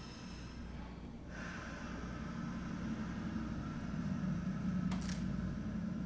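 Soprano saxophone played very softly as a breathy, airy tone that comes in about a second in and slowly swells. A single sharp click is heard near the end.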